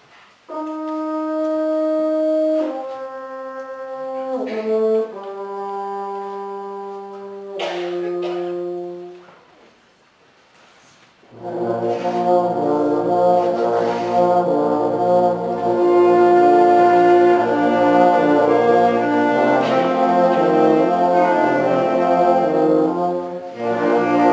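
Wind band playing: a few brass instruments hold slow, sustained notes that change pitch every second or two, then fall nearly silent briefly before the full band comes in loudly about eleven seconds in and plays on.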